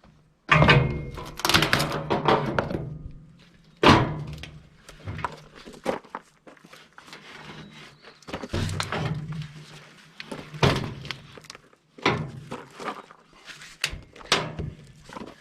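Irregular knocks and scrapes of a hand tool working against the RV's steel chassis frame as old sealant is chipped off. There is a loud cluster of thunks about half a second in, a sharp hit about four seconds in, and scattered knocks after that.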